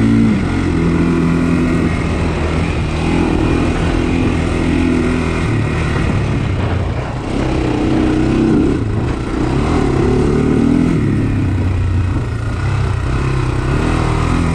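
Single-cylinder four-stroke engine of a Honda 400X sport quad running on a trail ride, its engine speed rising and falling with the throttle, climbing right at the start and again about eight to ten seconds in.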